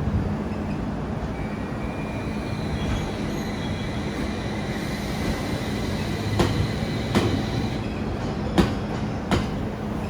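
Train moving along the station platform with a steady rumble and a faint high whine. Its wheels click over rail joints four times in the second half.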